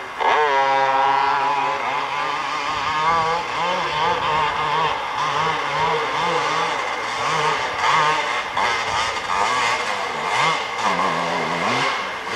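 250cc ATV engine revving up hard as the quad launches up a hillclimb course, then held at high revs with the pitch rising and falling as the rider works the throttle over the climb, with the wheels spinning in the dirt.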